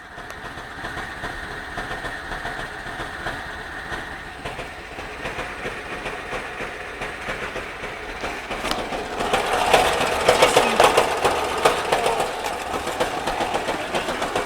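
ZMZ-24D four-cylinder petrol engine running with a rapid rhythmic knock, the fault being checked. It gets louder about two-thirds of the way in.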